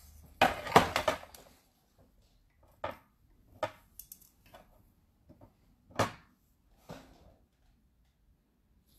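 Scattered light clicks and taps of a crystal pick-up tool and long acrylic nails against a metal crystal tray as small rhinestones are picked up. A quick cluster about a second in is the loudest, then single taps every second or so.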